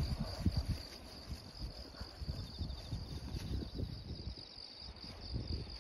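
Steady high-pitched chirring of insects in a grassy field, with soft irregular low thumps underneath.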